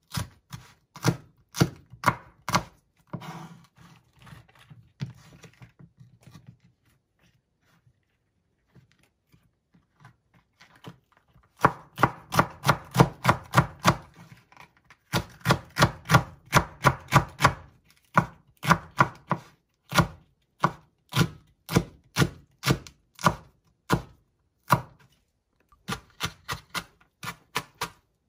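Kitchen knife mincing green bell peppers on a wooden cutting board: a rhythm of sharp knife strikes against the board. The strikes stop for a few seconds about a quarter of the way in, return as a fast run of several strikes a second, slow to single strikes, then speed up again near the end.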